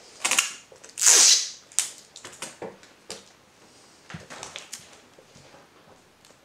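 Clear sticky tape and a paper sail on a milk-carton boat being handled: a loud rasp of tape about a second in, then short rustles, crinkles and light taps as the tape is pressed down around the base.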